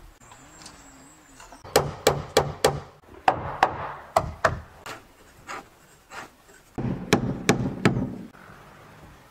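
A hammer striking wooden roof planks in three quick runs of about four or five blows each.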